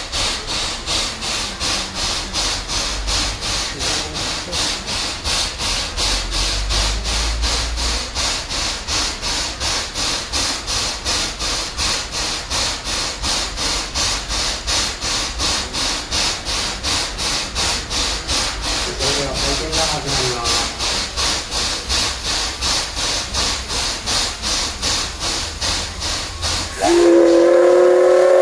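A steady rhythmic scraping hiss, about three beats a second, while a steam locomotive is turned on a turntable. Near the end the locomotive's steam whistle blows loudly, a held chord of several pitches, and it is the loudest sound.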